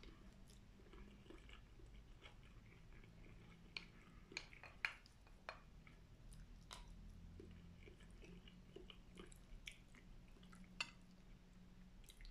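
Faint chewing and mouth sounds of a person eating a meal of chicken and rice, with scattered small clicks and a few sharper ticks.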